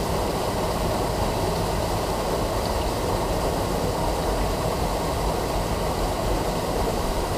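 Small mountain-stream waterfall pouring into a rock pool: a steady, unbroken rush of falling and splashing water.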